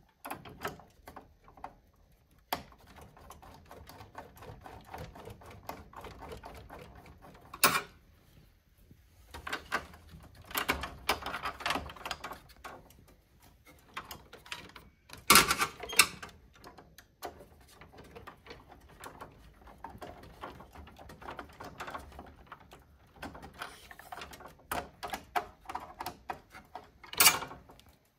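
Hand screwdriver turning long mounting screws into a card reader on a vending machine's metal door: a run of small metal clicks and scrapes as the screws are worked into their threads, with a few sharper clacks, the loudest about 8, 15 and 27 seconds in.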